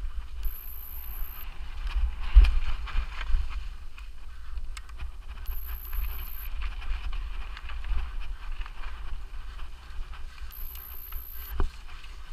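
Mountain bike being ridden fast over a rough forest trail: a steady rumble of wind and vibration on the microphone, with the bike rattling and knocking over the ground. The hardest knock comes about two and a half seconds in and another near the end. A thin, high electronic tone of about a second sounds three times, roughly every five seconds.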